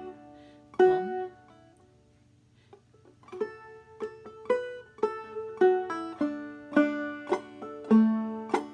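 Clawhammer banjo in double D tuning, capoed at the second fret, being played: one plucked note about a second in, a short pause, then a run of picked notes in an even rhythm from about three seconds in.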